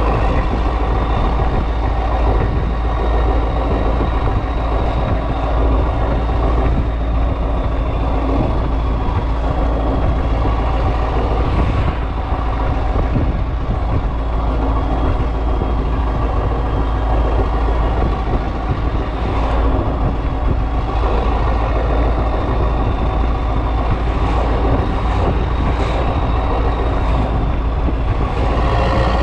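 Renault Magnum's 16.4-litre Mack E9 V8 diesel running loudly and steadily on open exhaust pipes while under way, with a high turbo whistle that drifts slowly in pitch.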